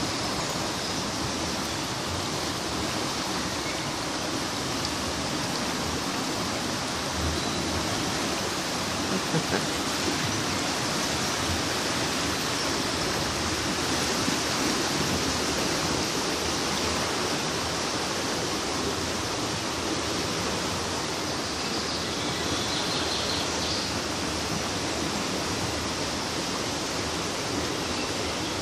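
Floodwater of a river in spate rushing past, a steady, even rush of water.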